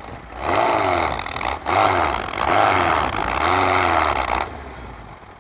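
Air-cooled VW bus engine revving up and down several times as the rear wheels spin in deep snow, the bus stuck. The noise stops about four and a half seconds in.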